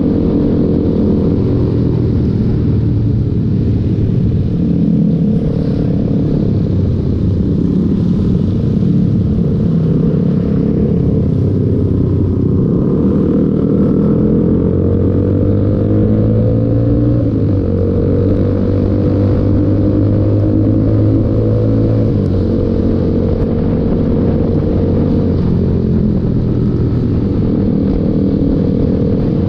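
Motorcycle engine running under way, its pitch rising and falling with throttle and gear changes, climbing steadily about halfway through.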